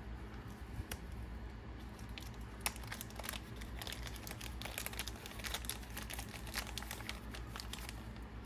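Plastic parts packaging crinkling, with small hardware clicking as it is handled and sorted.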